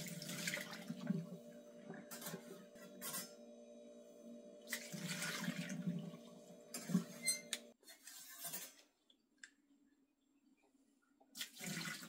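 Water splashing as a cup of rinse water from the espresso machine's descaling cycle is emptied into a sink, in two short pours. Under it runs a steady hum that cuts off suddenly about eight seconds in, with a couple of clicks just before.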